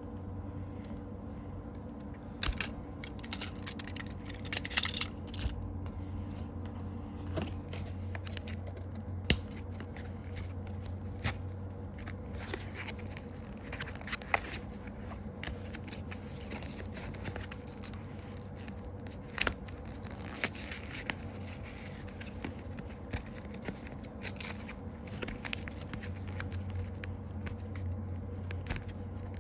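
Packaging being torn open and handled: tearing, crinkling and scraping with scattered sharp clicks and taps, over a steady low hum.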